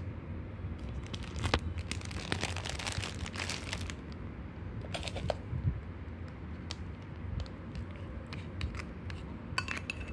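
Plastic crinkling for a few seconds, then scattered light clicks and clinks as a bowl of food is handled, over a steady low rumble.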